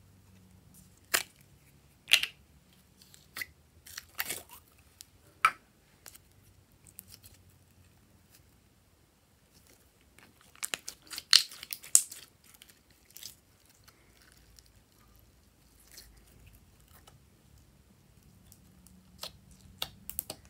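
A plastic slime tub being opened, with a few sharp clicks, then red slime pulled out of it in a burst of sticky crackles and pops about ten to twelve seconds in. Near the end come a few more light clicks as the slime is pressed down.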